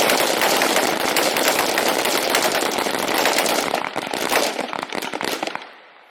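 A firing line of rifles shooting a timed string: many rapid shots overlapping into a dense crackle that thins out and stops about five and a half seconds in, as the time limit runs out.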